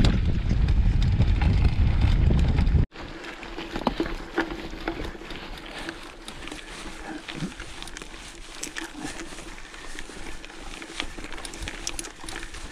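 Wind buffeting the microphone while a mountain bike rides a grassy track, cut off suddenly about three seconds in. Then the quieter sound of the bike rolling along a dry dirt track, with a faint steady hum and scattered small clicks and rattles.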